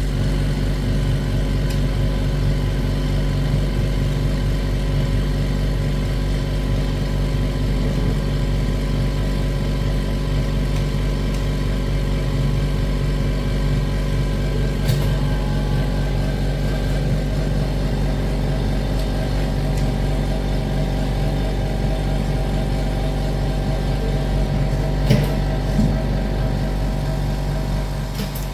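Machinery running with a steady low hum, with a few faint clicks about halfway through and again near the end.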